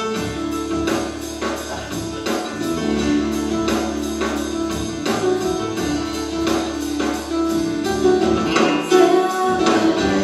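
Playback of a live church worship band recording with a steady beat, taken from the XY room microphone at the back of the room and run through Manley outboard processing. It gets a little louder near the end.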